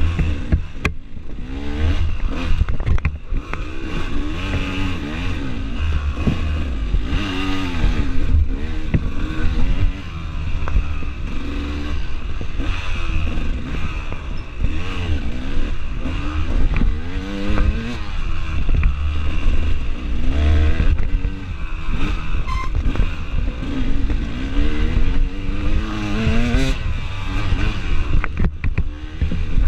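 Off-road dirt bike engine, ridden hard along a tight trail, revving up and down in quick, repeated bursts of throttle, over a heavy low rumble. Scattered short knocks and rattles come from the bike over the rough ground.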